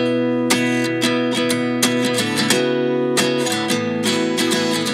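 Background music: a strummed acoustic guitar playing steady chords.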